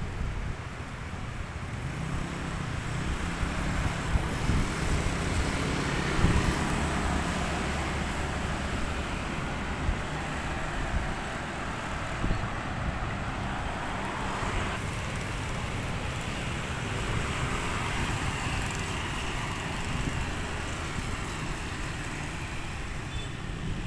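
Street traffic: cars and motorcycles passing on a city road, a steady mix of engine hum and tyre noise. It swells a few seconds in as vehicles pass closer.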